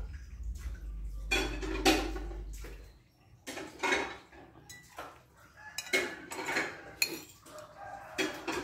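A metal spoon clinking and scraping on a ceramic plate, and a glass tumbler of tea knocking as it is set down on the table: a series of separate sharp clicks.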